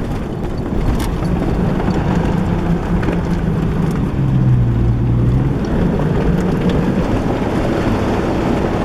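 Jeep Cherokee XJ engine running as it labours through deep, sinking mud; its note drops about four seconds in and rises again near six seconds.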